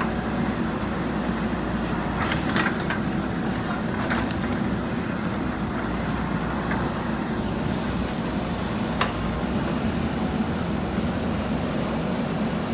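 JCB backhoe loader's diesel engine running steadily under work, with a few short, sharp higher sounds about two and a half, four and nine seconds in.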